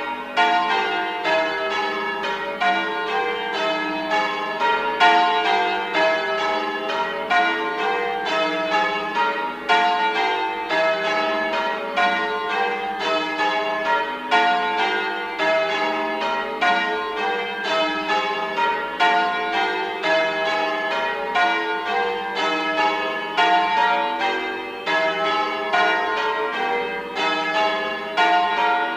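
Church bells ringing a continuous peal, several bells of different pitch struck in quick turn a few times a second, in the manner of change ringing.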